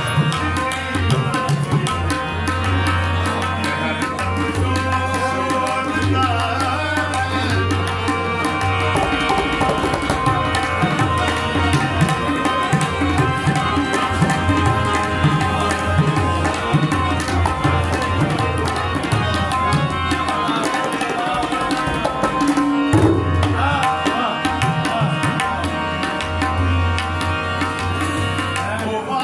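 Harmonium and tabla playing ghazal music: the harmonium holds sustained chords over a steady tabla rhythm.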